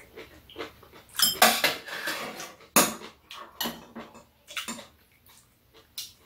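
Metal spoon and chopsticks clinking and scraping against ceramic bowls on a metal serving tray, mixed with close-up eating noises. There are many short clicks, with louder bursts about a second in and again near three seconds in.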